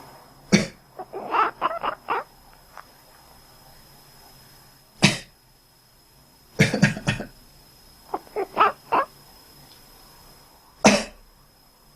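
A person coughs several times, once sharply near the start, again around the middle in a quick burst, and once near the end. Twice, just after a cough, a sleeping cat answers with a quick run of short, quack-like sounds.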